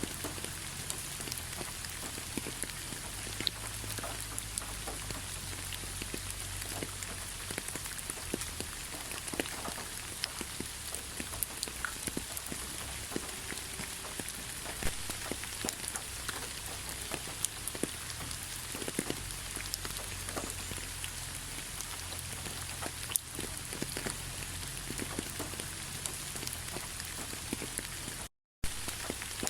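Steady rain falling on a surface, a continuous hiss with many separate drop ticks. The sound cuts out completely for a split second near the end.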